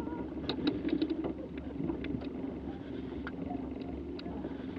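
Outboard motor running steadily at low trolling speed, a low hum with scattered light clicks over it.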